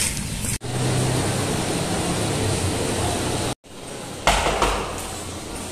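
A steady rumble with a low hum. After an abrupt cut, a sharp clack from a door's lever handle and latch about four seconds in, as the door is opened.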